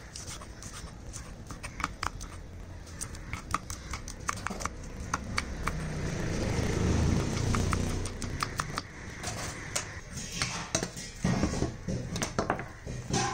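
Kitchen knife chopping green chillies on a wooden board: quick, irregular sharp taps of the blade striking the wood. A low rumble swells up in the middle and fades.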